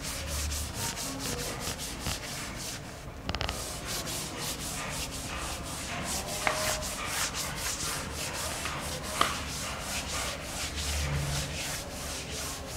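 Chalkboard eraser scrubbed back and forth across a chalkboard, wiping off chalk writing in a quick, steady run of rubbing strokes, with a short break about three seconds in.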